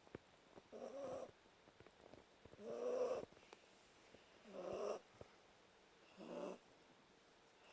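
Yorkshire terrier snoring in its sleep: four snores about two seconds apart, the second the loudest.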